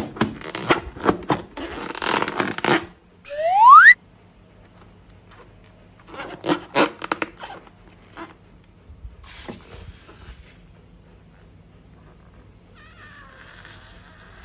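Sticky crackling and clicking of slime being squeezed and worked, in dense runs. About three seconds in, a short, loud whistle glides smoothly upward in pitch.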